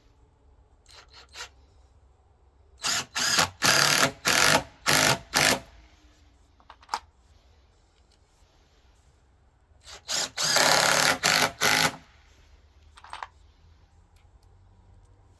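Power drill/driver running in short bursts, driving screws through wooden gusset plates into timber beams: a quick series of pulses about three seconds in, then a longer broken run about ten seconds in.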